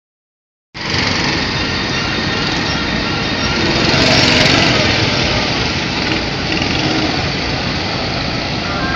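Small go-kart engines running under throttle, starting under a second in and growing louder about four seconds in as two karts pass close by.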